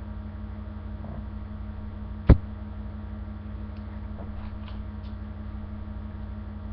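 Steady low electrical hum picked up by a webcam microphone, with one sharp knock about two seconds in.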